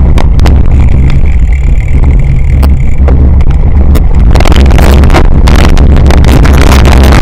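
Heavy wind buffeting and rumble on a bike-mounted action camera riding a rough dirt cyclocross course, with rattles and knocks from the bumpy ground. About four seconds in, the noise turns rougher and denser.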